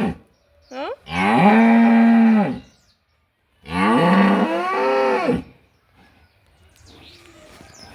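Dairy cows mooing: two long, loud moos, each held about two seconds, a second apart, then fainter sounds near the end. The cows are making noise because a cow they bullied, put outside, has been given food.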